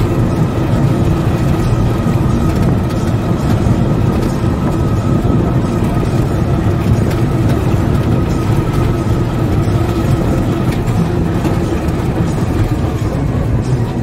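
Motor vehicle engine running steadily with road rumble, heard from on board while moving.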